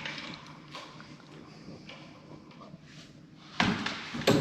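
Light handling and rustling, then two sharp knocks near the end, about two-thirds of a second apart.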